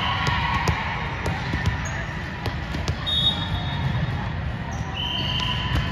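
Gym game sounds: sneakers squeaking briefly on the court about three seconds in and again near the end, scattered short sharp knocks, and a steady murmur of crowd chatter underneath.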